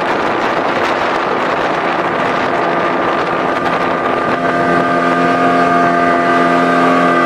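Motorboat engine running at a steady speed, with wind buffeting the microphone; about four seconds in the engine note grows louder and fuller.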